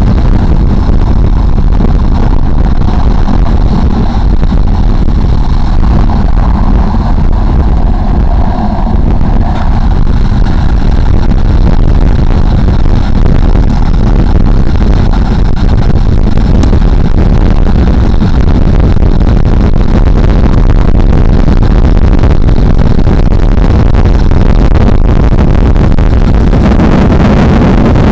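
Downhill skateboard running fast on asphalt: a loud, steady rush of wind over the microphone mixed with the rumble of the wheels on the road.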